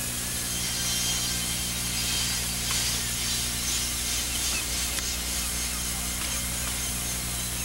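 Steady hiss with a low electrical hum beneath it, the background noise of an old videotape transfer; a few faint ticks in the hiss.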